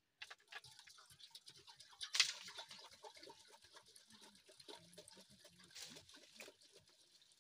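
Liquid pouring from a plastic jerrycan into a metal cooking pot, with an irregular gurgling splash that is loudest about two seconds in.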